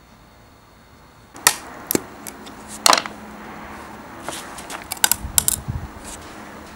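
Metal parts and hand tools being handled, clicking and tapping irregularly. The first sharp clicks come about a second and a half in, with the loudest near three seconds and a quick cluster around five seconds.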